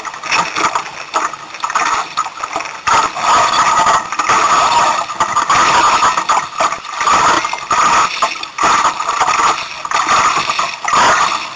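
Strong gusty wind rushing over the microphone aboard a small sailboat on choppy water: a loud, rough noise that swells and drops with each gust.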